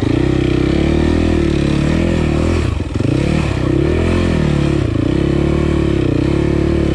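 Dirt bike engine pulling away as the clutch is let out, its revs rising and falling again and again as the throttle is worked over rocks and sand, with a brief dip about three seconds in.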